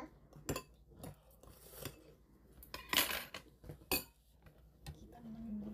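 Metal chopsticks and spoons clicking and scraping against stainless steel bowls during a meal: a few sharp clinks, with a louder hiss-like sound about three seconds in. A low hum begins near the end.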